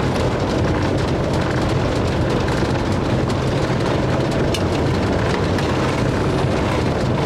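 Motorhome driving slowly over a cobbled road, heard from inside the cab: a steady low rumble of the engine and of tyres on the setts, with small clicks and rattles.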